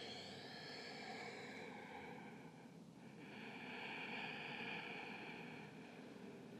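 Faint, slow breathing: long soft breaths, one fading away early and another swelling up about three seconds in and dying down a couple of seconds later.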